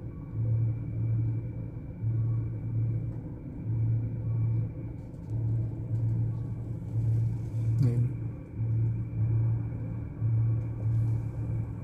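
A long cargo train of container wagons rolling past: a low rumble that swells and fades about once a second as the wagons go by.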